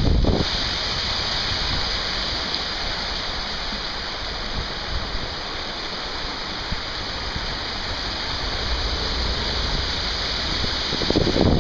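A small river running over rock ledges in little cascades: a steady rush of water. A gust of wind buffets the microphone near the end.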